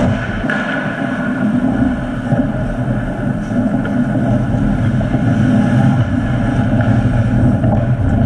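Steady low rumble of indoor ice-rink ambience during play, with no distinct puck or stick impacts standing out.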